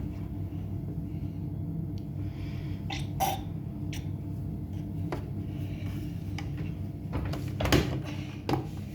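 Washing machine running with a steady low motor hum, and scattered knocks and clicks from the drum and its load, a louder cluster near the end.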